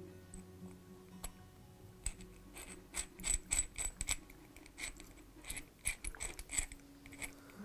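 Small irregular metal clicks and ticks, a few a second from about two seconds in, as the metal chuck shell of a Millers Falls eggbeater drill is twisted by hand onto its chuck during reassembly.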